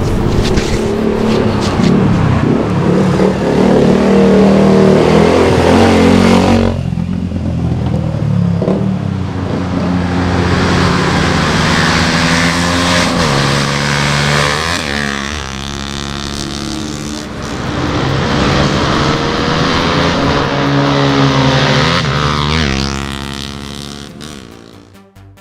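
Yamaha FZ150i single-cylinder four-stroke motorcycle fitted with an AHM M1 aftermarket exhaust, ridden on the road: the exhaust note climbs and falls repeatedly as it accelerates through the gears and the throttle is closed, with a sharp drop in the engine note about seven seconds in. The sound fades away near the end.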